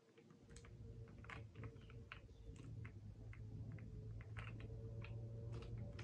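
Irregular, sharp plastic clicks and taps from handling a mechanical keyboard and its keycaps, over a steady low hum that swells in at the start.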